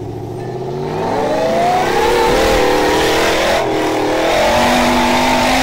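Off-road vehicle engine revving under load, rising in pitch and loudness over the first two seconds, then held high with the pitch wavering up and down.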